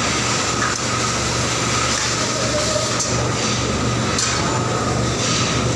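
Steady machinery noise of a car-seat assembly line, with a constant low hum and a few sharp clicks and clinks of metal parts about three and four seconds in.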